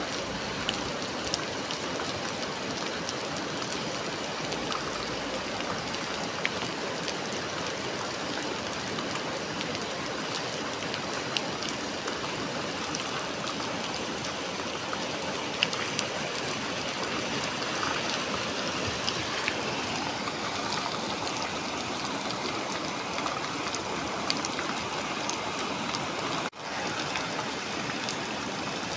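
Heavy rain heard from inside a café: a steady hiss of rainfall with scattered sharp drips and taps. The sound drops out for an instant near the end.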